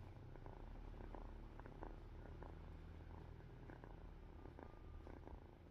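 Drowsy domestic cat purring steadily, a soft low rumble.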